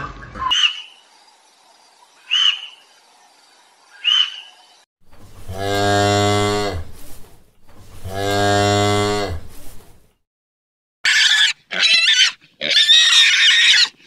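Two long cow moos, each about a second and a half, and then, from about eleven seconds in, a run of short high-pitched pig squeals. Before the moos there are three short high calls, a second and a half to two seconds apart.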